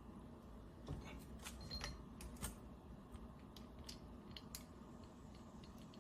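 Scattered faint clicks and light taps from metal tools and coilover parts being handled, over a steady low hum.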